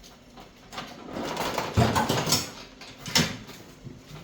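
Scraping and clattering as a snowblower is handled and tipped back onto its wheels, with a heavy thud a little under two seconds in and a sharp knock about a second later.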